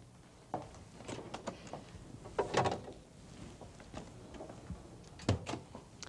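A microwave oven's door and a baking ring dish being handled as the dish is taken out: scattered clicks and clatter, a louder scraping rattle about two and a half seconds in, and a sharp knock about five seconds in.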